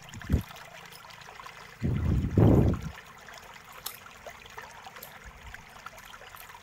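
Low rumbling handling noise lasting about a second, about two seconds in, from hands working on the opened netbook's base and mainboard, with a few faint small clicks around it.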